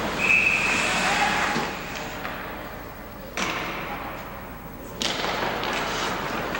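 A referee's whistle blows once at the start, a short steady high note stopping play, over a steady haze of ice-rink noise. Two sharp knocks follow, about a second and a half apart, in the second half.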